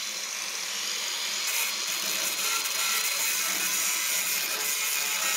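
A power tool working steel, running steadily without a break: a continuous high, hissing whir.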